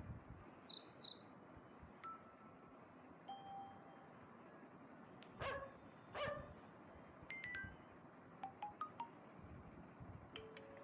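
An Infinix Note 30 Pro phone playing a string of faint, short notification chimes and beeps: high pips, single tones, two quick sweeping chirps about halfway through that are the loudest, then runs of quick short notes.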